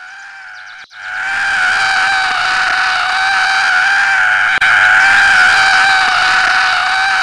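Cartoon ant character's long, high-pitched scream, starting about a second in and held at a nearly steady pitch with a slight waver.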